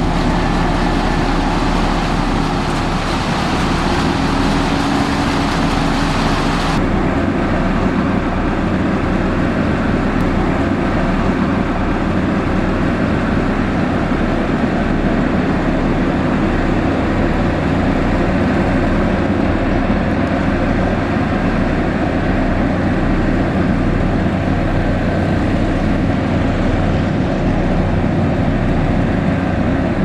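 Mitsubishi motor grader's diesel engine running steadily under load as it grades a dirt road, with a constant low hum. The sound turns duller about seven seconds in.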